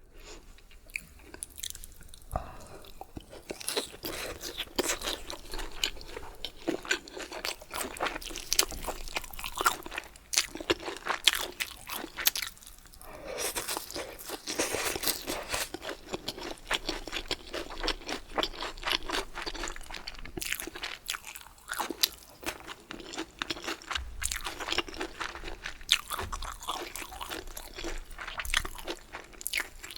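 Close-miked chewing and biting of food, with crisp, irregular crunches.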